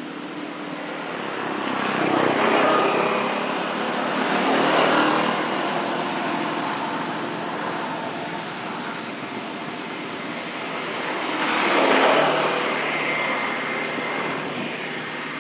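Vehicles passing by, each swelling and fading over a few seconds: three passes, about two, five and twelve seconds in.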